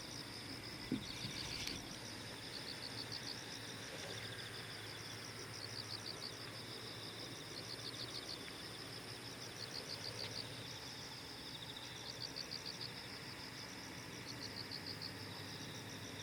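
An insect chirps in short, rapid, high trills that repeat every one to two seconds, over a low steady hum. A thin high whine stops about ten seconds in.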